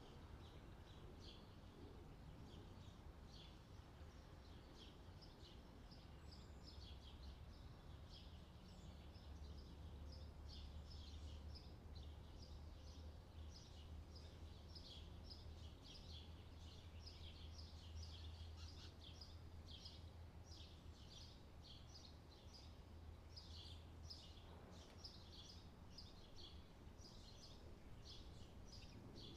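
Faint chirping of small birds: many short, quick high chirps overlapping throughout, over a steady low hum.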